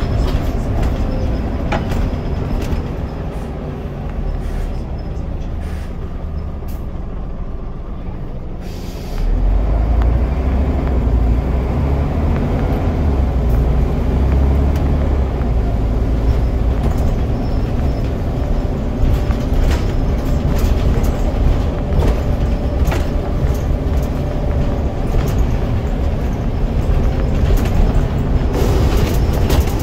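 Scania DC9 9.0-litre diesel of a Scania N94UD double-decker bus, heard from inside the saloon. It runs quietly at first; after a short hiss about nine seconds in, it gets much louder and deeper as the bus pulls away under load, with small rattles from the body.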